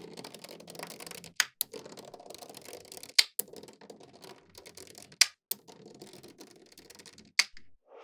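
Small magnetic metal balls clicking and rattling against one another as a strand of them is lowered onto a sheet of balls, with several sharp snaps as balls jump into place.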